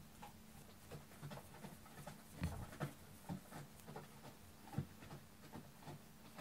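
Faint, irregular scratching and soft taps of fingers rubbing a cat's fur under its chin.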